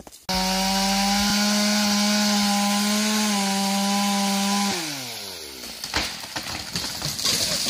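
Big chainsaw running flat out in a felling cut on a large white pine, its engine note steady, then dropping in pitch as the throttle is let off about three-quarters of the way through. A few sharp cracks and a rising rush of noise follow near the end.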